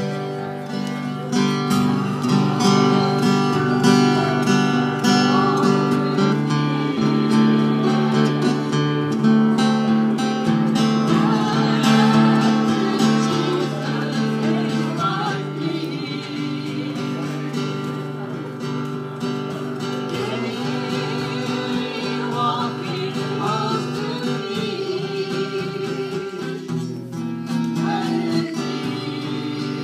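Acoustic guitar strummed with a singing voice over it.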